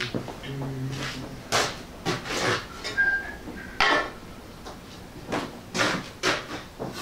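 Scattered knocks, clinks and clatter of metal tools and objects being handled and set down, with footsteps; a short clear metallic ring about three seconds in.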